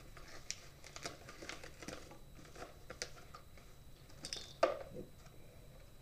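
Padded paper envelope crinkling and rustling as it is handled and opened, in many short scattered crackles, with one louder crackle near the end.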